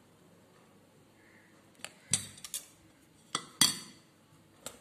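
Steel spoon clinking against a dish while mayonnaise is spooned out: a quiet start, then about six sharp clinks from about two seconds in.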